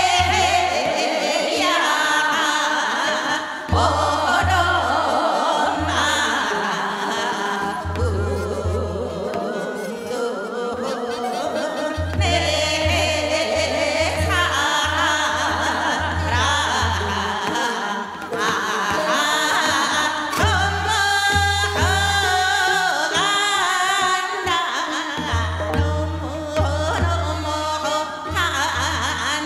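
Woman singing Seodo sori, Korean folk song of the northwestern provinces, in a wavering voice with heavy vibrato. Instrumental accompaniment runs under her, with a low pulsing beat that comes and goes in groups.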